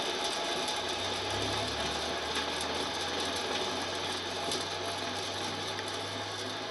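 Land Rover front brake drum spinning fast on its hub, with a steady mechanical running noise and low hum. The drum is out of balance from poor manufacture, the cause of a vibration above 50 mph.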